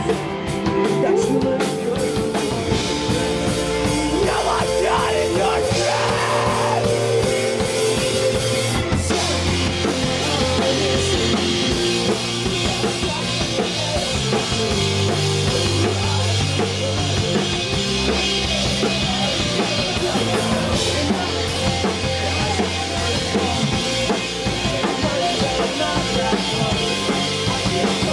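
Live rock band playing a song: drum kit, electric bass and electric guitar, loud and continuous.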